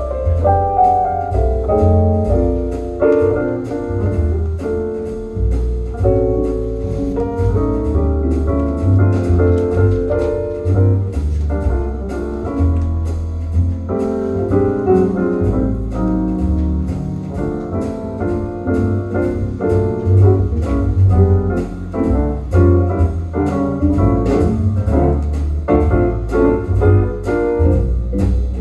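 Instrumental break of a vocal jazz record played from vinyl through a hi-fi system's horn loudspeakers: piano lines over a walking double bass, with no singing.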